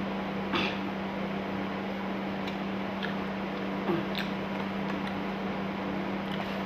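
Steady low machine hum with a few light clicks and taps, the loudest about half a second in and about four seconds in.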